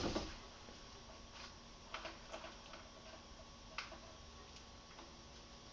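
Faint, scattered clicks and knocks, about five in all with the strongest right at the start, from someone climbing into and leaning over the open cockpit of a Haynes Roadster kit car.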